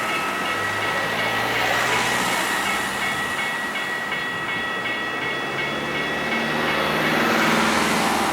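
Rhaetian Railway Bernina-line train, an ABe 8/12 electric unit hauling panoramic coaches, running past with steady rolling noise and a continuous high whine.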